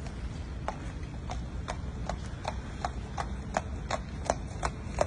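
A horse's hooves striking wet pavement in an even clip-clop, about three steps a second, growing louder near the end.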